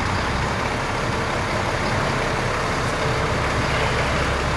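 Diesel engine of a semi-truck tractor running as the truck drives slowly towing a heavy trailer: a steady low drone.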